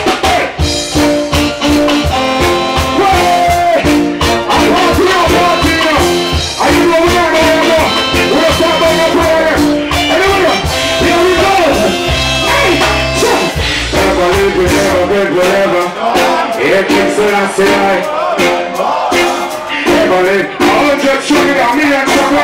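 Live reggae band playing, with drums, bass and guitars, while a man sings into a microphone over it. A deep bass note is held for a couple of seconds about halfway through.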